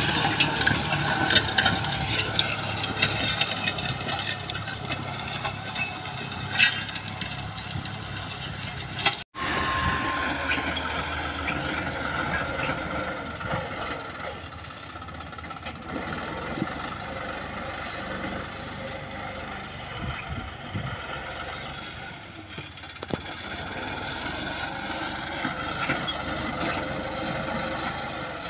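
John Deere tractor's diesel engine running steadily under load as it pulls a disc plough through dry field soil, with scattered knocks. The sound cuts out for an instant about nine seconds in, then continues a little quieter.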